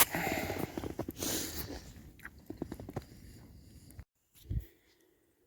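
Irregular close crunching and clicking that fades over about four seconds and then cuts off suddenly. A single short low thump follows soon after.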